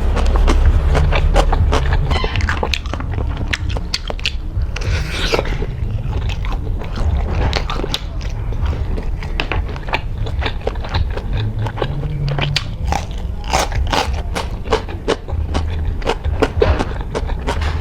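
Close-miked biting and chewing of fried sausages, a dense run of wet clicks and crunchy crackles, over a steady low rumble.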